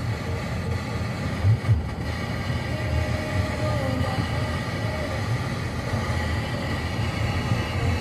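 Steady low rumble of a 2020 Honda Civic driving, heard inside the cabin, with two short thumps about a second and a half in.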